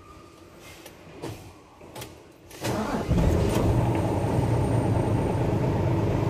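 Isuzu Gigamax truck's 6WF1 six-cylinder diesel started from inside the cab: a few light clicks, then about two and a half seconds in it cranks briefly, catches and settles into a steady idle.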